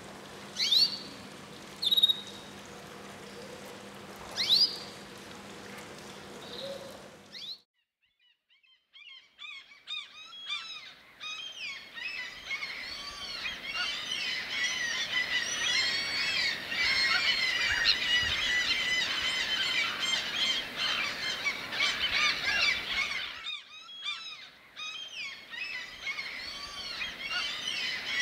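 A few separate bird calls over a low steady hum, then after a short break a dense chorus of many birds calling at once. The chorus swells, dips briefly near the end, and comes back.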